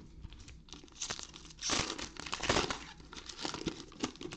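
Trading-card pack wrappers crinkling and tearing as packs are ripped open by hand, loudest in a burst about two seconds in.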